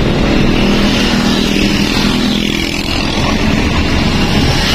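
Vehicle engine running steadily while driving, heard from inside the cab with the side window open.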